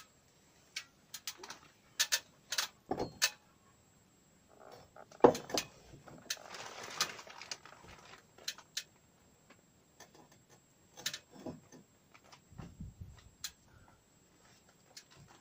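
Scattered light clicks and knocks of a metal carpenter's square and tools being handled against wooden roof rafters while measuring, the sharpest knock about five seconds in, with a brief rustling around the seventh second.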